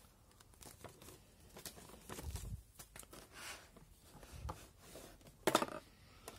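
Soft handling noises from a digital microscope's packaging: rustling of a paper leaflet and small clicks and knocks as parts are handled in the box's plastic tray, with one sharper knock about five and a half seconds in.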